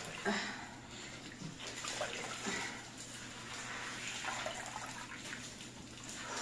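Water sloshing and dripping in a plastic basin as a red bristled scrubbing pad is dunked, rinsed and squeezed out, in a few irregular splashes.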